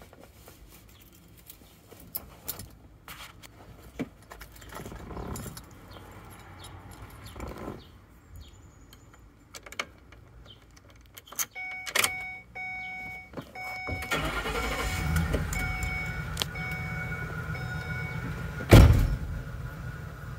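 Keys clicking in the ignition of a 2009 Ford E-250 Econoline van while a dashboard warning chime repeats. About 14 seconds in the engine is cranked, starts, and settles into a steady cold idle. A single loud thump comes near the end.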